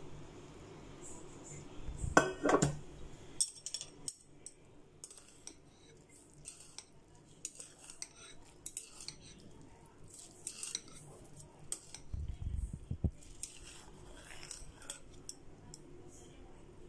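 Metal chopsticks clinking and scraping against a bowl while noodles are stirred in broth to mix in the seasoning. The light clinks are irregular, with a louder knock about two seconds in and a dull low thump around the middle.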